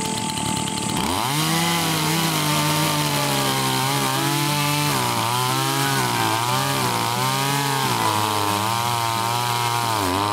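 Makita petrol chainsaw revving up about a second in and cutting into a hard dead tree stump. Its engine pitch dips and recovers again and again as the chain bogs in the hard wood, then falls as the throttle eases near the end.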